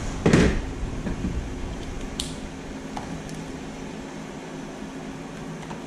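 Small tools and RC truck parts handled on a workbench: a knock just after the start, a sharp click about two seconds in and a fainter tick a second later, over a steady low hum.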